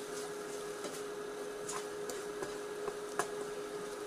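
A spatula stirring green beans and potatoes in a wok, with a few sharp clicks where it knocks against the wok, over a steady hum.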